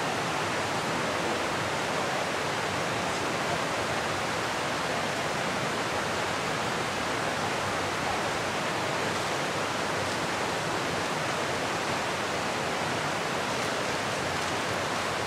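Steady rush of a creek or small waterfall: an even, unbroken hiss of flowing water.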